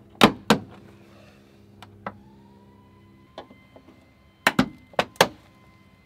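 Sharp plastic clicks and snaps as a Jeep Gladiator's fender retaining clips are pinched with pliers and the fender is pulled free: two just after the start and a quick run of four near the end.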